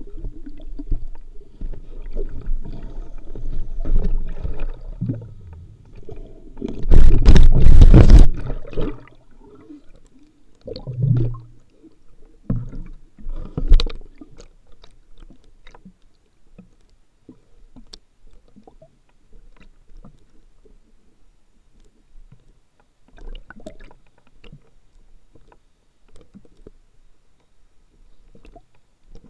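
Muffled underwater rumble and sloshing picked up by a submerged camera, with a very loud churning burst about seven seconds in and a few shorter ones after, then faint scattered clicks.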